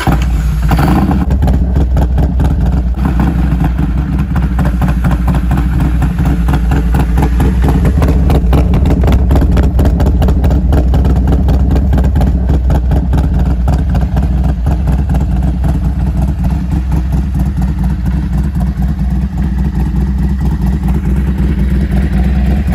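Harley-Davidson Sportster Iron 1200's air-cooled V-twin, breathing through a new handmade stainless 2-into-1 full exhaust, fires up at the start and then runs steadily.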